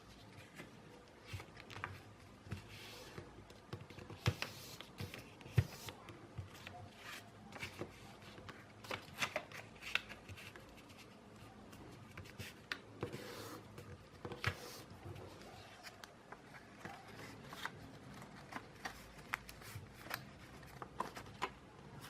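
A sheet of A4 paper being handled, folded and creased by hand: irregular rustles and sharp crinkling strokes as the folds are pressed down.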